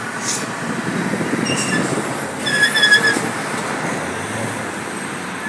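Steady rushing airport apron noise with a short high-pitched squeal about two and a half seconds in.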